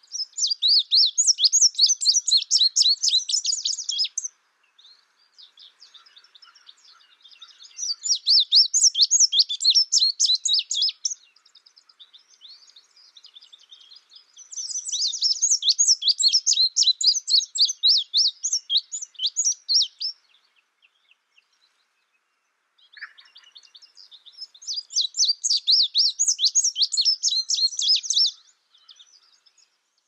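Indigo bunting singing: four bouts of rapid high notes, each a few seconds long, with faint scattered notes in the gaps between them.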